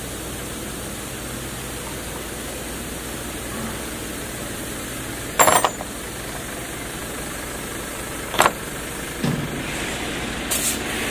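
An impact wrench tightening a car wheel's lug nuts in several short bursts, the longest and loudest about five and a half seconds in and shorter ones near the end, over a steady hiss.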